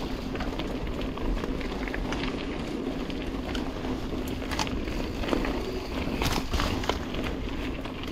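Dartmoor Primal hardtail mountain bike riding singletrack: a steady rush of tyres and wind with a hum underneath, and frequent sharp clicks and rattles from the bike over rough ground, a cluster of louder knocks a little past halfway.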